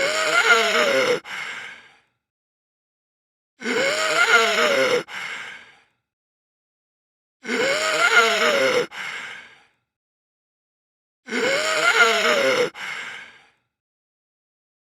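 Heavy human breathing: the same breath comes four times, about every four seconds, with dead silence between. Each is a long, loud breath with some voice in it, followed at once by a shorter, softer one.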